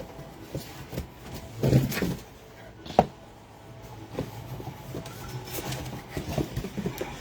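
Trading card packs and cards being handled: scattered light clicks and rustles, a louder rustle just under two seconds in and a sharp click about three seconds in.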